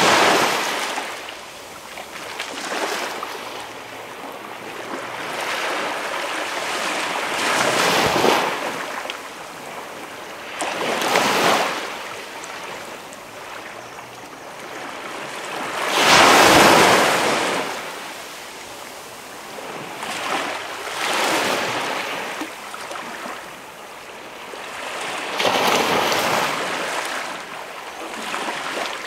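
Gentle waves washing onto a quiet beach, each wash swelling and fading every few seconds. The biggest wave comes a little past halfway.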